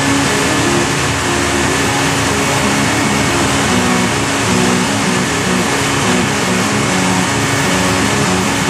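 Lycoming gas turbine running steadily near full power on a dynamometer, a dense even rushing noise.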